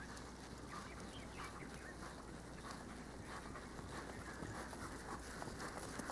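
Small birds chirping in quick, short calls over a steady low hum of outdoor background noise.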